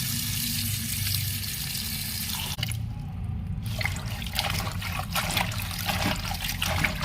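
Tap water running into a pot as spinach leaves are washed; the flow stops about two and a half seconds in, followed by irregular splashing as the leaves are swished about in the water.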